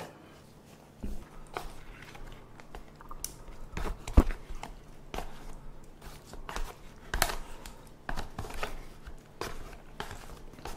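Chopsticks scraping and tapping against a flimsy plastic takeout container as sauced boneless chicken feet are pushed out of it, with the container crinkling: scattered irregular clicks and taps, one sharper knock about four seconds in.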